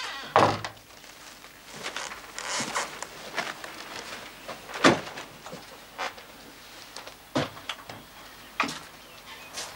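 Irregular knocks and clicks of footsteps and handling in a room, about a dozen in all, the loudest about five seconds in. Near the end come a few sharper clacks as a wooden casement window is unlatched and opened.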